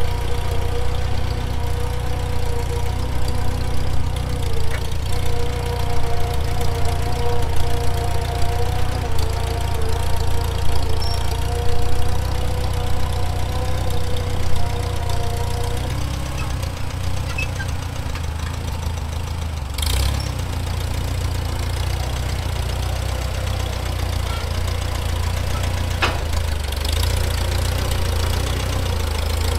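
An engine running steadily at an even speed, its tone changing about halfway through, with a short sharp knock about two-thirds of the way in.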